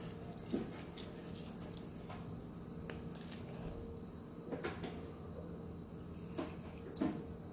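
Fresh lime halves squeezed by hand into a wooden mortar of dipping sauce: soft squelches and juice dripping, a few at a time, over a faint steady hum.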